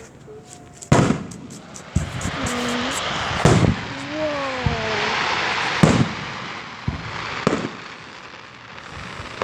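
Fireworks going off: about five sharp bangs a second or two apart, with a dense crackling hiss between about two and six seconds in.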